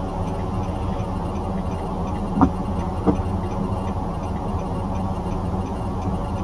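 Steady low rumble of a car driving, with two short clicks about two and a half and three seconds in.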